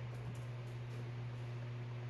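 Steady low hum of a refrigerator compressor running, even and unchanging.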